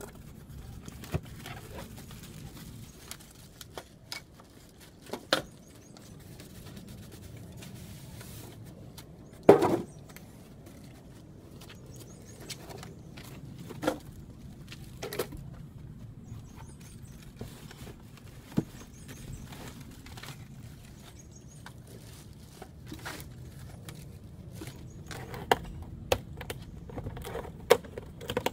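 Unpacking noises from a large cardboard box, its foam packing blocks and the plastic-wrapped tile saw being handled: scattered knocks and thumps. The loudest thump comes about ten seconds in, and several more fall near the end.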